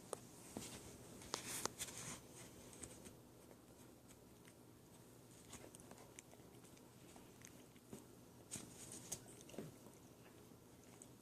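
A puppy gnawing and chewing. Faint crunching, clicking bites come in scattered bursts, thickest at the start and again about three-quarters of the way through.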